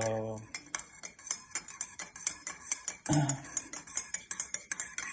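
A metal spoon stirring brown sugar into a cup of coffee, clinking against the cup in a quick, even run of several clinks a second.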